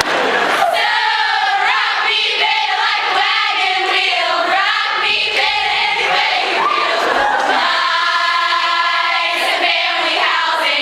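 A large group of women singing together in chorus, with several notes held steady near the end.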